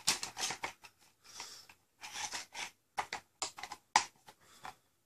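Irregular light clicks and clatter of hard blaster parts being handled during assembly, with the sharpest click about four seconds in.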